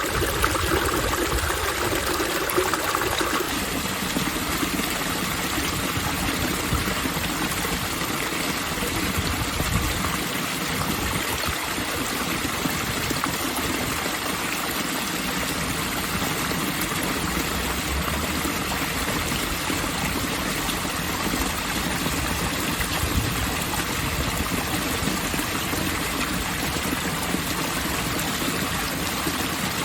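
Water running steadily through an outdoor park fountain, an even splashing and trickling, a little brighter for the first three seconds or so.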